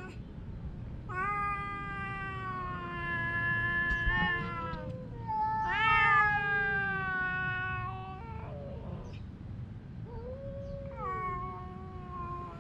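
Domestic cat meowing in long drawn-out yowls, about five calls: a long one starting about a second in, a short one, then the loudest, which rises sharply about six seconds in and is held, followed by two more near the end. It is the sound of a cat quarrelling with another cat.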